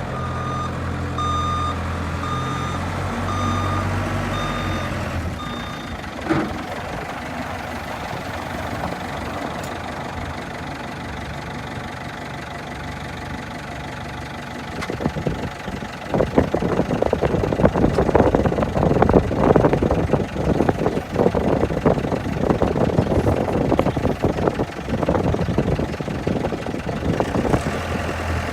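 New Holland backhoe's diesel engine running, its reversing alarm beeping evenly for the first five seconds or so. From about halfway a dense, loud run of crackling and knocking joins the engine.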